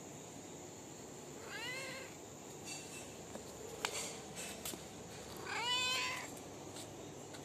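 Domestic cat meowing twice: a short meow about two seconds in and a louder, longer meow near the end, with a single sharp click in between.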